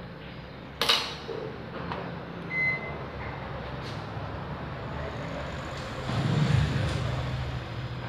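Microwave oven power plug pushed into the socket with a sharp click, then a single short high beep from the microwave about a second and a half later. A steady low hum runs underneath and swells for a moment near the end.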